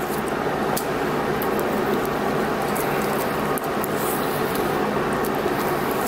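Steady background hum with scattered faint clicks and rustles from hands wrapping fiberglass tape around a LiPo balance lead.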